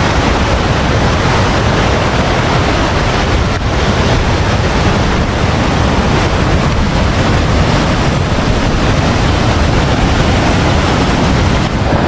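Steady rush of a river spilling over sandstone ledges in small cascades and falls.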